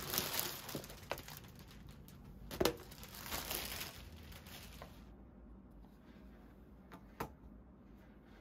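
Clear plastic bag crinkling and rustling as a desk mat is pulled out of it, with a sharper snap about two and a half seconds in. The rustling dies away after about four seconds, and one light tap follows near the end.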